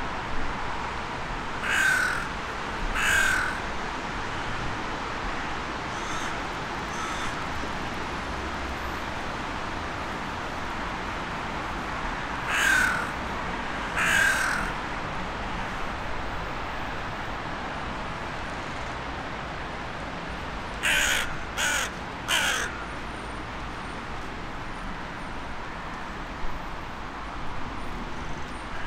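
A crow cawing: two drawn-out caws about a second apart, a couple of fainter ones, another pair of long caws, then three short caws in quick succession, over a steady background hiss.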